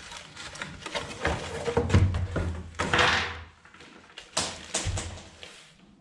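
A cardboard parcel being handled and opened by hand: irregular knocks and scraping, a short rasping noise about three seconds in, and a few sharp knocks shortly after.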